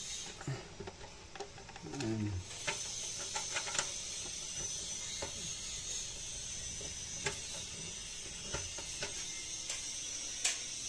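BNC cable connectors being twisted and pushed on and off the rear sockets of a Hikvision CCTV DVR: scattered small metallic clicks, with a louder click near the end, over a steady high hiss.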